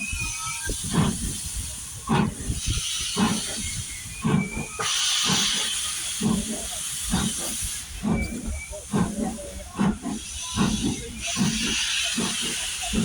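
Steam locomotive chuffing over a steady hiss of steam. The exhaust beats come gradually quicker, from about one a second to a little faster, as the engine gets its train moving.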